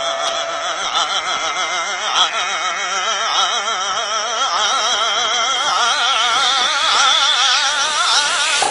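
Operatic singing from several voices at once, each with a wide vibrato, swelling toward the end and then cutting off suddenly.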